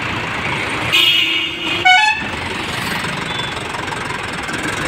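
Mahindra 575 DI XP Plus four-cylinder diesel tractor engine running steadily, with a vehicle horn sounding briefly about a second in, followed by a short rising tone.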